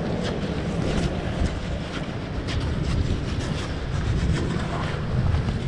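Wind buffeting the microphone over a wash of sea, with repeated scuffs and knocks of hands and feet on rock while climbing down a rope.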